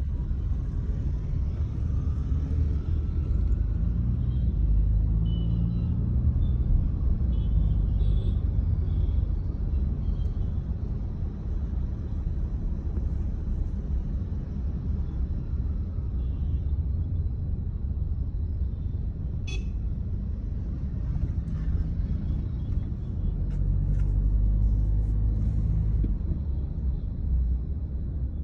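Low, steady rumble of a moving car's engine and tyres, heard from inside the cabin.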